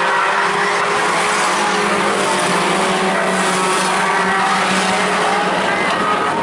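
A pack of Outlaw-class stock cars racing around a short oval track, many engines running together in a steady, continuous din as the cars pass.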